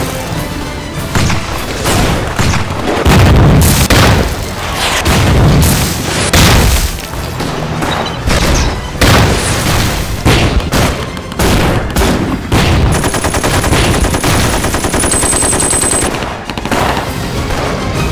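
Film battle sound effects: rifle and machine-gun fire with repeated explosions, heavy booms about three seconds in and again near six seconds in, mixed with dramatic music.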